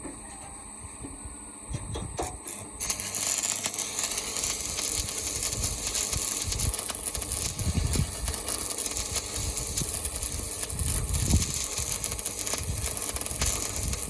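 Electric arc welding on steel: a few short crackles as the arc is struck, then a steady dense sizzling crackle from about three seconds in.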